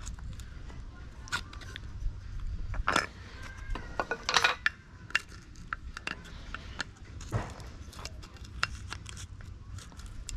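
Light hammer taps and scraping as an old rubber air spring bag is worked off an Audi A8 D4 air strut: irregular clicks and knocks, with a few louder ones about three and four and a half seconds in.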